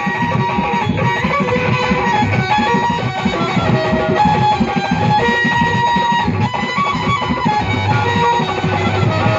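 Instrumental interlude of live folk-style stage music: a plucked-string melody of short held notes over a quick, steady rhythm accompaniment.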